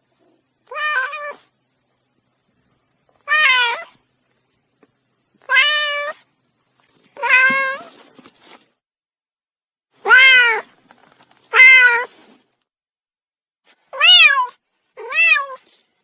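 Kitten meowing: eight short, high meows spaced one to three seconds apart, each rising and then falling in pitch.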